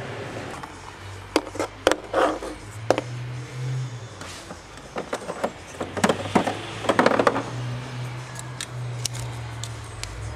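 Clicks and clatter of plastic adapters and the pressure-tester unit being lifted out of their moulded plastic case and handled, in a few sharp knocks early on and a cluster of rattling clicks about six to seven seconds in. Background music with a low bass line runs underneath.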